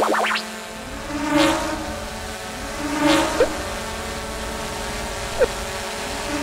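A small quadcopter drone's propellers buzzing in a steady hum, swelling three times as it sweeps past. A quick run of high rising chirps comes right at the start, and a few light ticks are scattered through.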